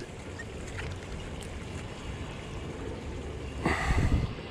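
Steady low rumble of wind on the microphone, with a short burst of noise about three and a half seconds in.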